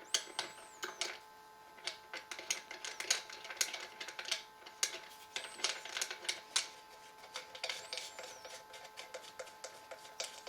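An Allen key turning a long hex screw out of a Ruger 10/22's stock: a run of light, irregular metal clicks and ticks, several a second, as the key is worked and repositioned in the screw head.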